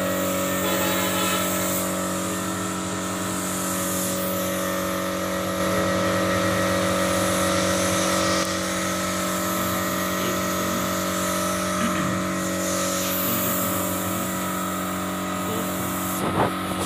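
Air compressor motor running steadily, a hum with several held tones, under the hiss of a spray gun misting melamine finish onto wood. The sound is a little louder for about three seconds midway.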